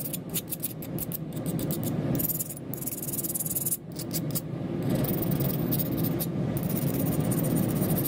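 Hardness-test file (Tsubosan HRC60) scraped in quick repeated strokes across the edge of a hardened 1084 carbon-steel blade. A file test like this is meant to show whether the file skates rather than bites, and the blade is judged fully hardened at about 63-64 HRC. A steady low rumble of background noise sits under the scrapes.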